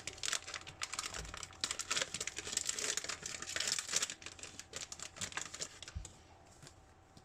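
A foil booster pack wrapper being torn open and crinkled in the hands: dense crackling for about four seconds, thinning out and fading after that.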